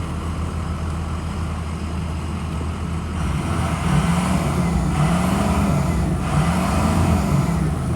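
Ford E-450 bus engine idling, then revved up and down several times from about three seconds in, running smoothly and sounding good.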